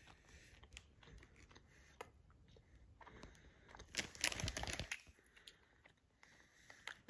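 Faint handling clicks, then a short burst of crinkling, as of packaging being handled, about four seconds in.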